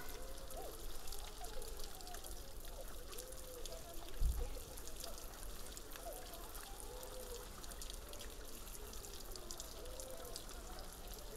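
Garden fountain's jet spraying and water falling back over the stone tiers into its basin, a steady splashing hiss. A single low bump comes about four seconds in.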